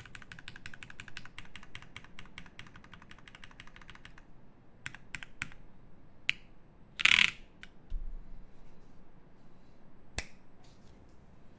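Mechanical keyboard with an aluminium plate, lubed Nixie switches and GMK keycaps, typed on quickly for about four seconds. After that come only a few scattered keystrokes, with one louder, longer clatter about seven seconds in and a sharp click a few seconds later.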